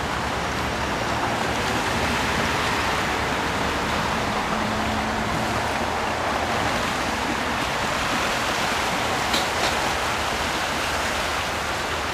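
Steady rush and splash of stream water as a Lada Niva 4x4 wades through a shallow ford, its engine faintly beneath the water noise. Two short clicks about nine seconds in.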